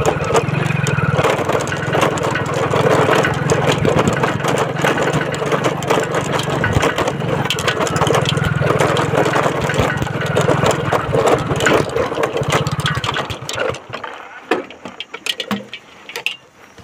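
Motorcycle engine running steadily while the bike is ridden. It dies away about three-quarters of the way through, leaving scattered knocks and rattles.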